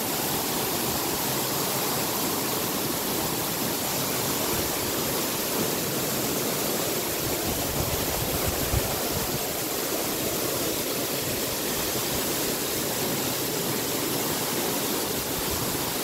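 Steady rush of a waterfall and of the stream running over rocks below it.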